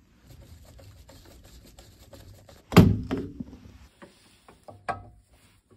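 Handling noise as a drain-down hose is fitted to a boiler's drain point: rustling and small clicks, one loud thunk nearly three seconds in with a brief ring, then a few sharp clicks.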